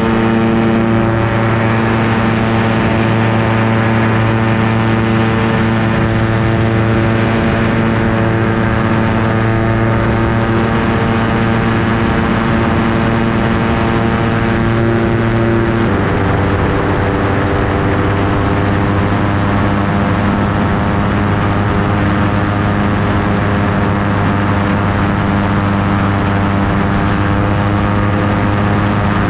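Ultralight aircraft's engine and propeller running steadily in flight, over a rush of wind through the open cockpit. About halfway through, the engine note steps down in pitch as power is reduced.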